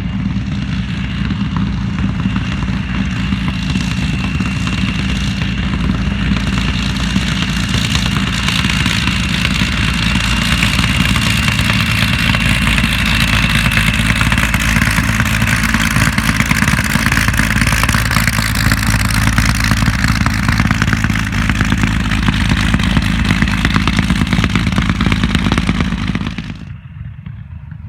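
Large piston engine running hard and steadily at close range, with a rapid rough texture; it stops suddenly about a second and a half before the end.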